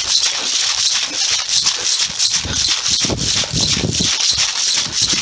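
Rustling and rattling in quick, uneven strokes as a running airsoft player pushes through long dry grass, the stalks brushing his kit and the gear jostling with each stride.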